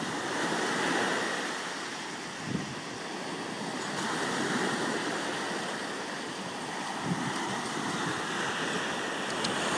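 Sea surf breaking and washing up the beach, swelling and easing in waves, with a couple of brief thumps.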